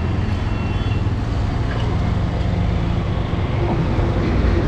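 Motorcycle engine idling steadily close by, with road traffic noise behind it.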